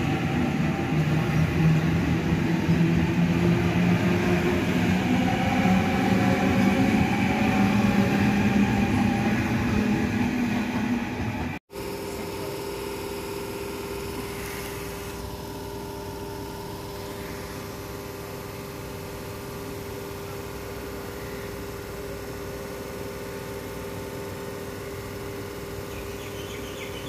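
Sydney Trains double-deck electric train running along the platform, its motors giving a whine of several tones that rise slowly. After a sudden cut about twelve seconds in, a Tangara electric train stands with a quieter steady electrical hum.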